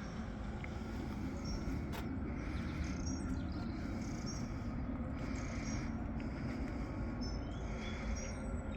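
Outdoor background ambience: a steady low rumble with short high-pitched chirps every second or two.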